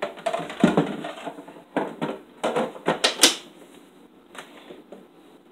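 Clatter and knocks of plastic parts of a Breville Barista espresso machine being handled, a quick irregular series with the loudest knock a little past three seconds in, then settling.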